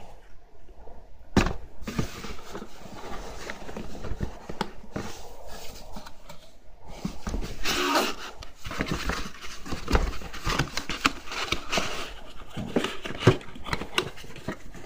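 Cardboard rustling, scraping and knocking as hands work inside a cardboard box and pull at its handle. A sharper knock comes about a second and a half in.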